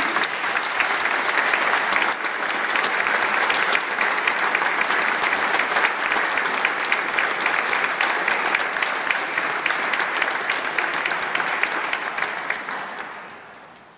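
Audience applauding: steady dense clapping that dies away near the end.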